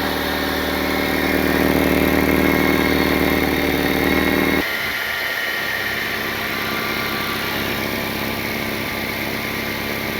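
Car engine idling with an exhaust leak somewhere under the heat shield near the catalytic converter. A steady engine note gives way, about halfway through, to a rougher, hissier running sound with less of the low hum.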